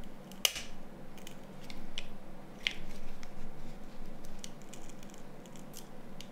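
A metal spudger prying and scraping at the internals of a Nokia N93 phone: a sharp click about half a second in, another near the middle, and a scattering of small ticks and scrapes.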